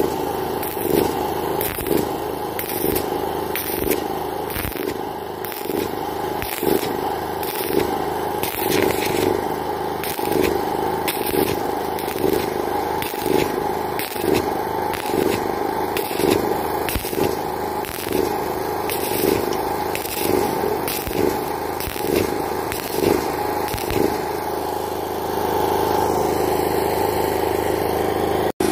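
Stick (shielded metal arc) welding on a steel pipe joint: the electrode's arc crackles and sputters in a steady run of pulses over a constant mechanical hum. The crackling stops about 25 seconds in, leaving the hum.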